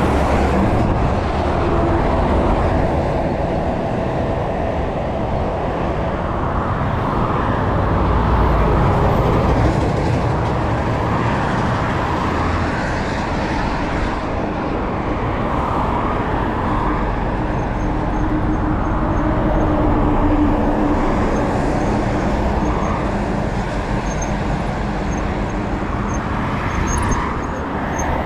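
Steady rush of traffic from cars and trucks passing on a multi-lane highway, mixed with wind rumble on the microphone of a moving bicycle. The level swells as heavier vehicles go by.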